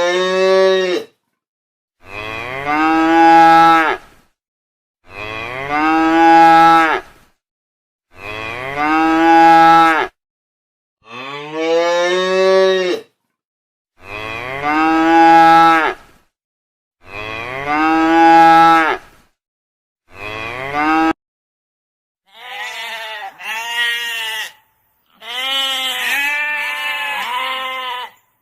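Cow mooing, the same long moo repeated about eight times at roughly three-second intervals. In the last few seconds a sheep bleats several times in short, wavering calls.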